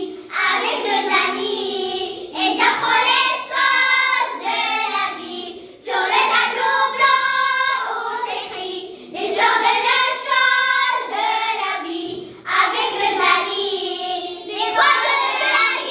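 A group of about ten primary-school children singing a song together, with no instruments heard, in phrases of about three seconds broken by short pauses for breath.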